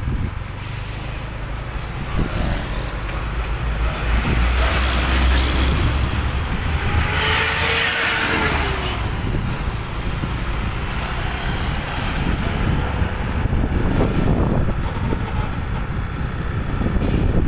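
Vehicle driving noise in slow traffic: a steady low engine and road rumble, with a broad hiss about seven to nine seconds in.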